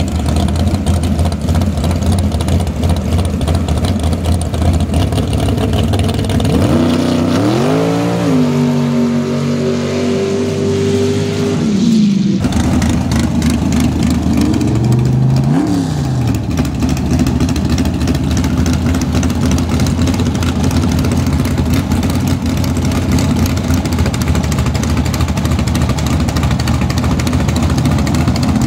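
Sand drag race truck engines idling with a rough, uneven beat. About a quarter of the way in one engine revs up and holds a higher speed for a few seconds before dropping back, and a little past the middle there is a short throttle blip.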